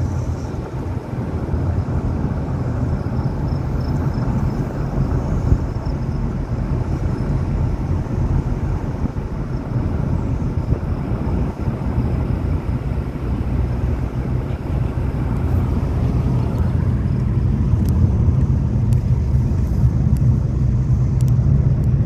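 Car road noise heard from inside the cabin: a steady low rumble of tyres and engine while driving, growing a little louder in the second half.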